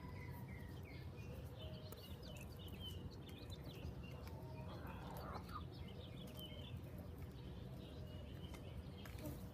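Birds chirping in many short, high notes over a steady low outdoor rumble.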